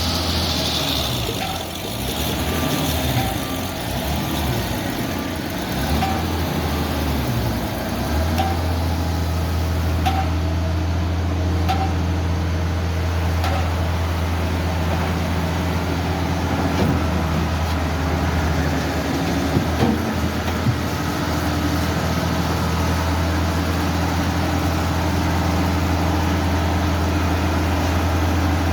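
Diesel engine of a Hitachi hydraulic excavator running. Its low drone is uneven for the first eight seconds or so, then holds steady.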